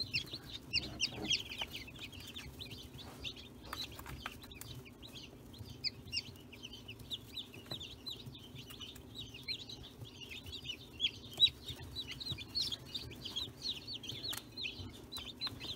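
Newly hatched chicks peeping together in a brooder: a dense, continuous stream of short, high cheeps, each falling slightly in pitch. A low steady hum runs underneath, with a few sharp clicks.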